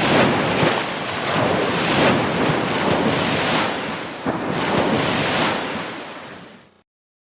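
Ocean surf washing in, swelling and easing every second or two, then fading out and stopping abruptly about a second before the end.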